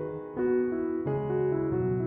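Background piano music, slow and gentle, with notes changing about every half second.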